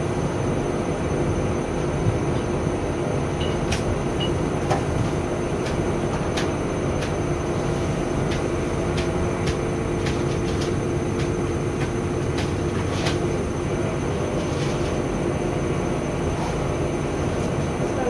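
Front-loading washing machines tumbling a wet load in the wash phase of a quick 15-minute program: a steady motor hum with water noise and scattered sharp clicks throughout.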